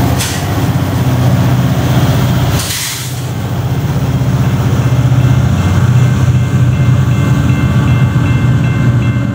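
BNSF diesel-electric freight locomotives running under power as they pull past, a loud steady low drone throughout, with a brief hiss about three seconds in.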